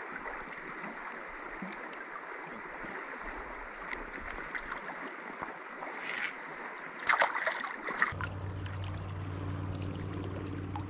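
Creek water flowing steadily over a shallow riffle, with a few sharp splashes and knocks about six to eight seconds in as hands and a landing net work in the water. A steady low hum joins the water noise near the end.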